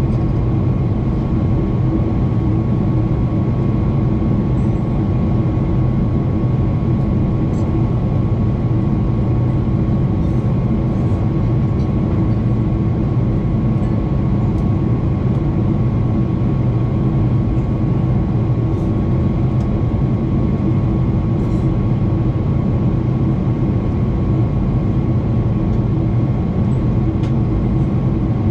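Cabin noise inside a Boeing 777-300ER in flight, beside the wing: a steady drone of the GE90-115B turbofan and airflow, with a steady whine running through it.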